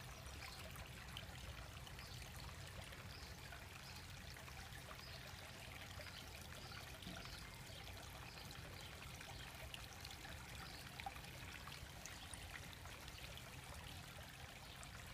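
Faint, steady trickling of running water in a garden koi pond, with a low rumble underneath.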